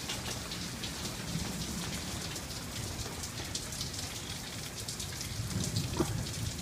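Steady rain falling, with many separate drops ticking on hard surfaces.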